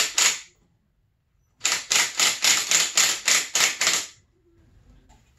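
Hand ratchet wrench clicking as it is swung back and forth to tighten a bolt on the engine: a couple of strokes, then after a pause about ten even strokes at roughly four a second.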